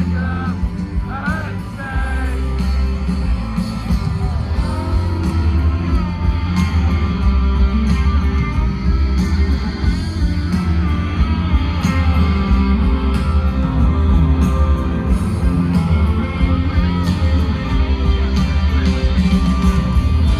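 Live rock band playing loudly, with guitar carrying the tune over drums and bass, and some singing in the mix.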